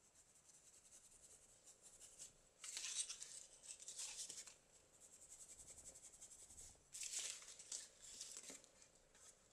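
Dry paintbrush scrubbed through a plastic clementine mesh bag onto canvas drop cloth: two short spells of rapid brushing, the first about three seconds in and the second about seven seconds in.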